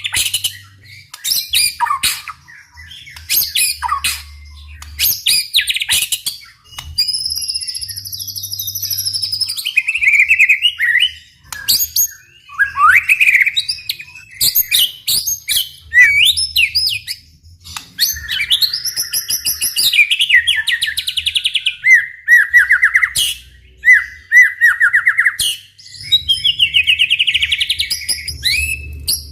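White-rumped shama singing energetically: a fast, varied run of loud whistled phrases, rising and falling slurs, rapid trills and sharp clicks, one phrase after another with short gaps.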